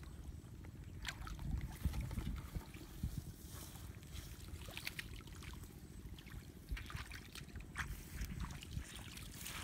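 Legs and hands moving through shallow, muddy paddy water: soft sloshing with scattered small splashes and drips, over a low rumble.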